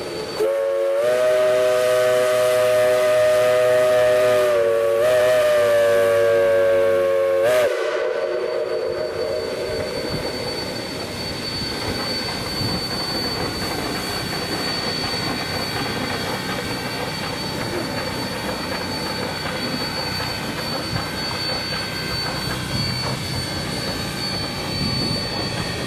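Geared steam locomotives whistling: a long, loud steam-whistle blast of about seven seconds, over a lower whistle chord, with a brief dip in pitch in the middle and a sharp cutoff. After it comes the steady hiss and running noise of the locomotives, with a thin high whine.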